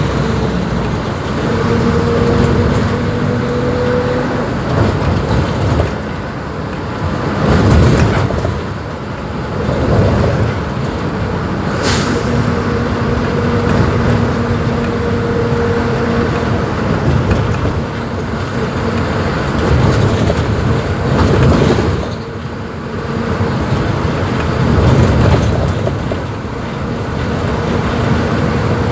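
Mercedes-Benz OF-1721 BlueTec 5 bus diesel engine running under way, swelling and easing with the throttle several times. A steady whine rises slightly over the first few seconds and returns in the middle stretch. A single sharp click comes about twelve seconds in.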